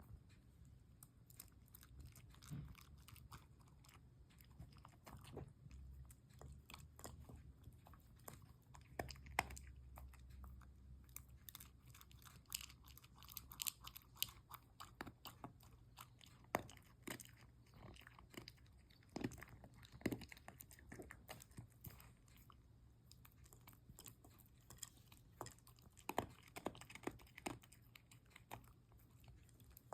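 A mame shiba dog chewing crunchy food, with a steady run of irregular, faint crunches and bites.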